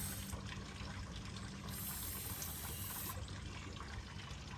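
Steady trickle of running liquid over a low, steady hum.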